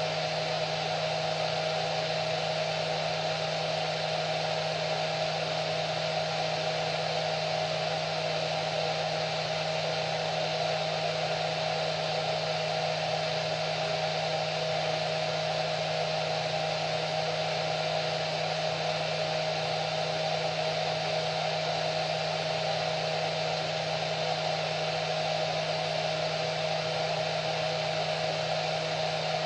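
Hair dryer running continuously at a steady speed: an even whoosh of air with a low motor hum and a fixed whine.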